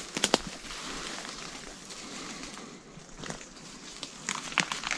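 Footsteps and rustling of people pushing through bush undergrowth, with a few sharp snaps: two just after the start, one past the middle and several near the end.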